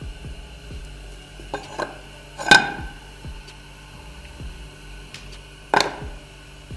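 Bars of chocolate set down in a nonstick pan: two sharp knocks, about two and a half seconds in and again near the end, with a few lighter clicks just before the first.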